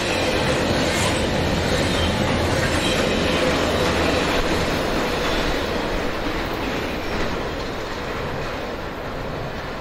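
Norfolk Southern double-stack intermodal train rolling past, its steel wheels running on the rails with a faint squealing tone. The sound fades over the last few seconds as the end of the train moves away.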